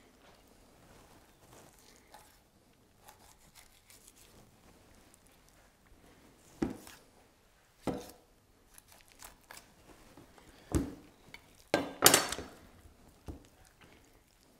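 Quiet knife work on a raw guinea fowl on a wooden chopping board: a few short knocks and scrapes as the blade and the bird touch the board, with a louder cluster of knocks and rustling about twelve seconds in.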